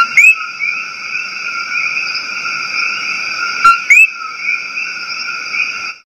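Common coqui frog giving its two-note "co-qui" call twice, about four seconds apart: a short low note, then a quickly rising higher note. Behind the calls runs a steady chorus of many more callers.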